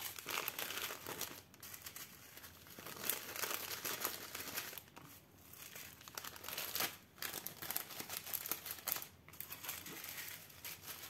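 Small clear plastic zip bags of diamond-painting drills crinkling and rustling as they are handled and gathered up, with a few brief pauses.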